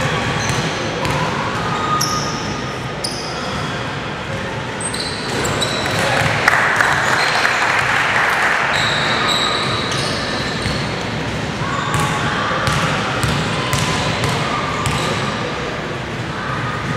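Basketball bouncing on a hardwood court, echoing in a large gym hall, with players' voices in the background.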